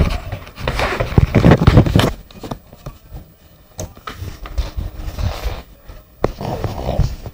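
Handling noise from the handheld recording device: hands and fabric rubbing and knocking right on its microphone, loud and dense for the first couple of seconds, then quieter rustling with a few sharp clicks as it is carried about.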